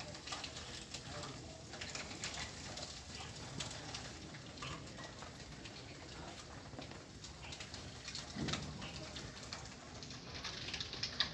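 Pigeons cooing over a quiet background of scattered light clicks and knocks, with a duller thud about eight seconds in.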